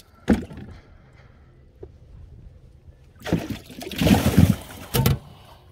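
Water splashing and sloshing for about two seconds, starting around three seconds in and ending with a sharp knock. There is one knock just after the start.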